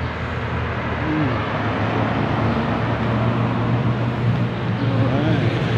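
City street traffic noise: a steady rumble of car engines and tyres on the road, with no sharp events.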